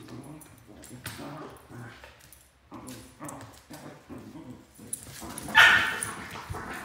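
Two Pembroke Welsh Corgis, an adult and a three-month-old puppy, play-fighting with repeated short, low play growls and vocal noises. About five and a half seconds in comes one much louder, sharper dog call.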